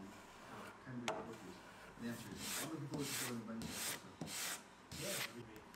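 Small metal block plane shaving along the edge of a wood veneer patch, four rasping strokes about two-thirds of a second apart, trimming the new veneer flush with the panel edge.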